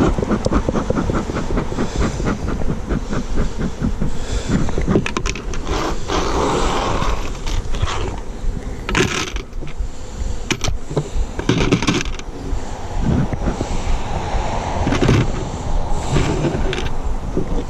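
Honeybees buzzing at an open Layens hive, with scrapes and knocks of wooden hive parts being handled, against a low rumble of wind on the microphone.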